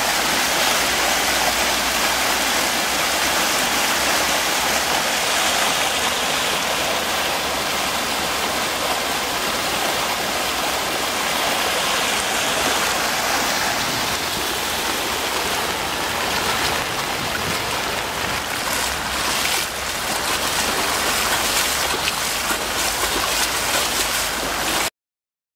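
Fast, deep floodwater rushing across a street from an overflowing stream: a loud, steady rush of water that cuts off suddenly near the end.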